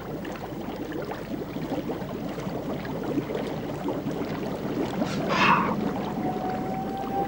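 Water lapping and sloshing against a small rowboat's hull, with one short rush of noise about five seconds in.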